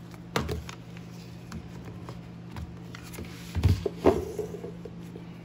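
A square glass candle jar set down on a wooden tabletop: a light tap and rustle about half a second in, then a low thump and a sharp knock with a short ring near four seconds, over a steady low hum.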